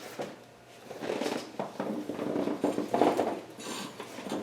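Socket wrench and extension clinking and knocking against metal in irregular bursts while being fitted to an oil pan bolt.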